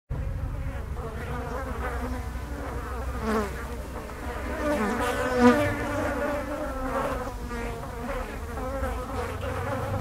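Blowflies buzzing, several wavering tones rising and falling in pitch as they fly about, loudest about five seconds in, over a low steady rumble.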